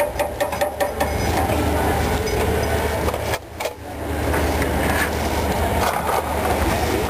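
A few light metallic clicks in the first second as a steel ice-lolly mould knocks against the metal cylinder of an es goyang cart, over a steady low rumble.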